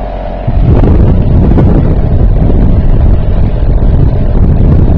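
3.5 hp Sea King outboard motor running, with loud wind buffeting on the microphone that comes in suddenly about half a second in and covers most of the engine note.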